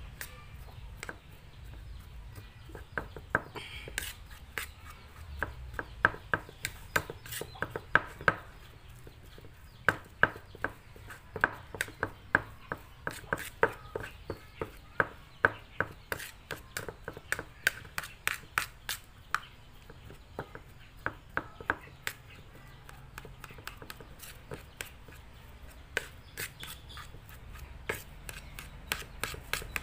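Metal spoon mashing cooked purple yam on a ceramic plate: a long run of sharp, uneven taps and clicks as the spoon strikes the plate, about two a second.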